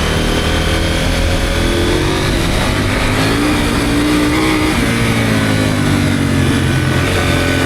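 Motorcycle engine running under way, the revs rising and falling, with a sudden drop in pitch a little past halfway, over low wind rumble on the microphone.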